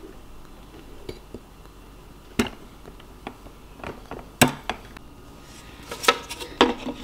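Several separate light knocks and clicks of a measuring cup and utensils against the plastic bowl of a Bosch kitchen machine as flour is tipped in, the loudest about halfway through; the mixer itself is not running.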